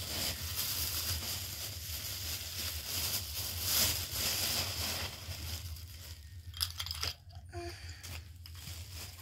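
Thin clear plastic bags crinkling as a hand rummages in them, with the mixed nuts inside rattling and crunching against each other. The handling is busy for about six seconds, then thins out into a few separate rustles.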